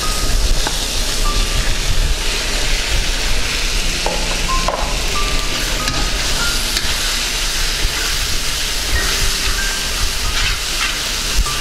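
Raw chicken pieces sizzling in a hot kadai of fried onion, tomato and ginger-garlic masala as they are tipped in and stirred with a spatula. It is a steady, loud hiss of frying.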